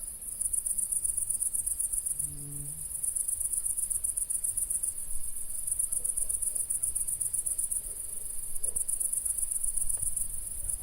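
Crickets chirping at night in a continuous chorus of fast, high-pitched pulses.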